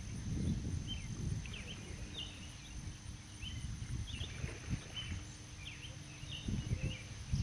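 Wind rumbling on the microphone, with small birds chirping short high calls about every half second.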